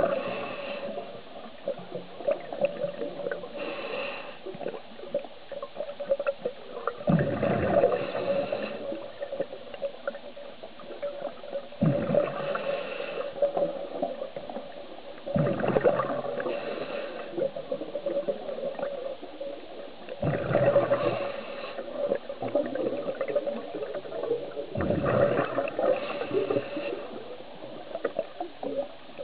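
Scuba diver's regulator breathing underwater: bubbling exhalations and hissing breaths, repeating about every four to five seconds over a faint steady hum.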